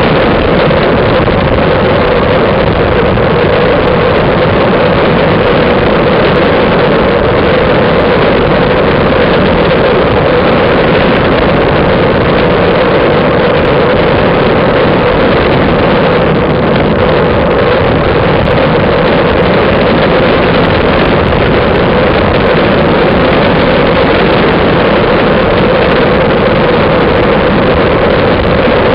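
Steady, loud rush of wind buffeting a bike-mounted camera's microphone as a road bike rolls along at speed, with the hum of the tyres on asphalt under it.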